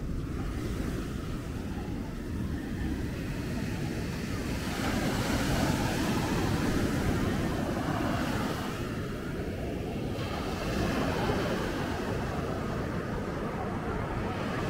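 Surf breaking and washing up a sandy beach, swelling louder in the middle as a wave comes in, with a low wind rumble on the microphone.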